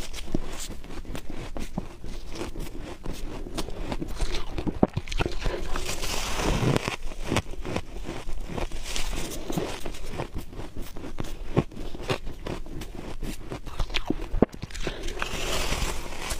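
Close-miked bites into soft freezer frost: a dense run of crunching and crackling, with a few louder sharp snaps.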